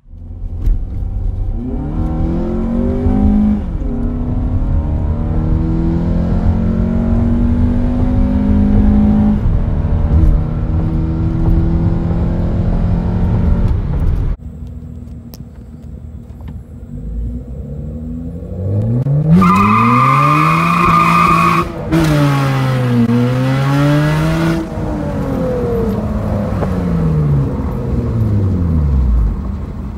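Car engine pulling hard at full throttle, heard from inside the cabin: the engine's pitch climbs, drops at each upshift and climbs again. After a cut, a second car runs up through one gear change with a high whine for about two seconds, then winds down near the end.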